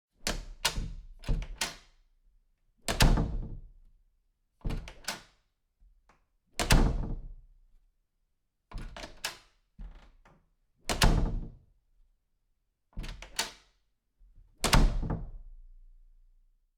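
A door opened and shut four times over. Each time, a few quick latch and handle clicks come first, then the door closes with a heavy thunk that rings out over about a second. The closing thunks are the loudest sounds, and the last one dies away longest.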